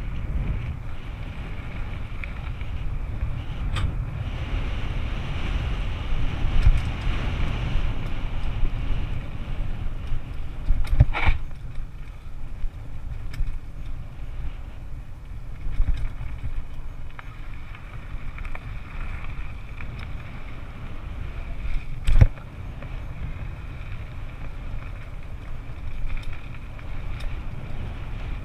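Wind buffeting the microphone over the steady rumble and rattle of a mountain bike running down a rough downhill trail, with sharp knocks about eleven and twenty-two seconds in.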